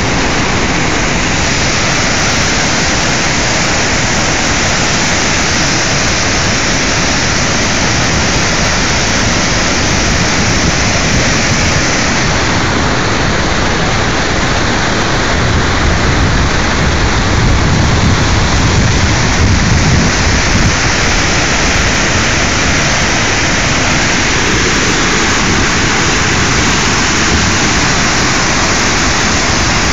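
The Great Falls of the Passaic River in flood: a loud, steady rush of falling and churning water. A deeper rumble swells for a few seconds past the middle.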